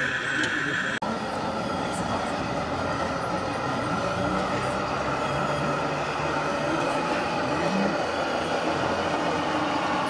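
A steady high whine for the first second breaks off, and is followed by the steady hum and whine of a scale RC truck running, with people talking faintly in the background.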